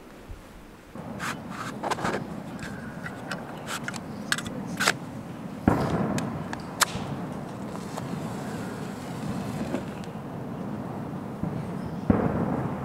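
Clicks, knocks and scraping of camp gear and kindling being handled at a small steel fire pit, with one hard knock about halfway. Just before the end comes a sudden scratchy burst as a flame is struck to light the fire.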